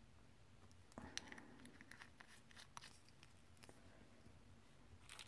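Faint clicks and taps of small plastic glitter jars being handled and set down on a hard surface, starting with a soft rustle about a second in and coming scattered over the next few seconds, with a few more near the end.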